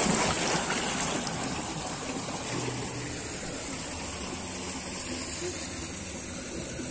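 Rushing water in a concrete irrigation channel: a steady gushing that fades over the first couple of seconds to a softer background rush.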